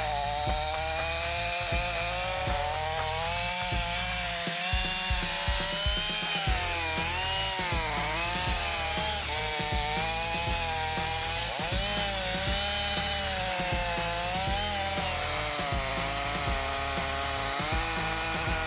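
Chainsaw engine running under load, its pitch dipping and rising again and again as it cuts into wood, with background music underneath.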